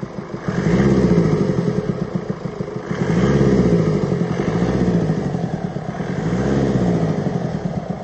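Mercedes OM654 four-cylinder diesel engine revved up and down several times from idle, with a deep knocking from the engine that the workshop puts down to worn rocker arms.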